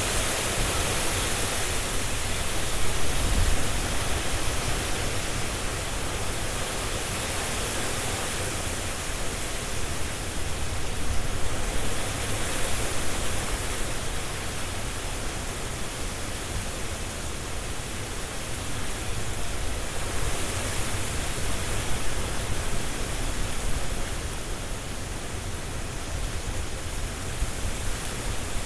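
Strong wind blowing through trees, the leaves rushing in a steady hiss that swells in gusts every few seconds, with a low rumble of wind underneath.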